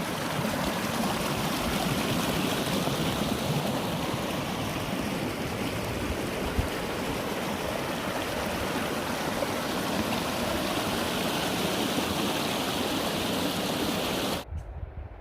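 Mountain stream rushing steadily over rocks; the sound cuts off suddenly near the end.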